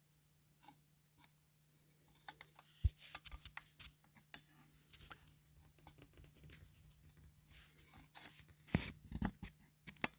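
Faint handling noise: scattered light clicks and scrapes of parts being moved and turned, a sharp knock about three seconds in and a couple of louder bumps near the end, over a faint steady hum.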